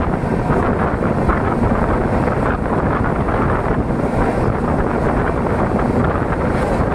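Indian Railways express passenger train in motion: a steady, loud rumble from the running gear mixed with rushing wind on the microphone.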